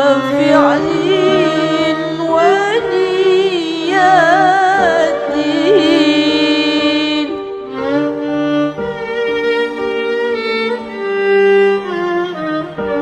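Music: an ornamented melody with a wavering pitch over held lower notes, the melody smoothing into longer held notes after about five seconds.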